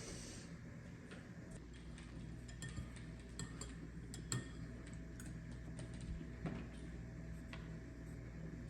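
Faint light clicks and small knocks at uneven intervals over a steady low hum, typical of quiet household handling sounds.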